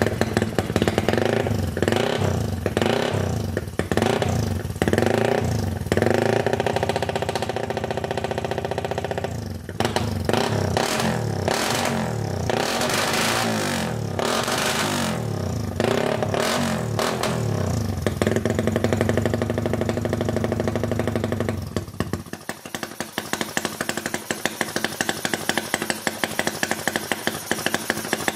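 A 150 cc scooter's single-cylinder engine running through an NLK aftermarket exhaust can, revved repeatedly. It gives quick throttle blips about once a second, then longer held and rising-and-falling revs, and settles to a steady idle about 22 seconds in.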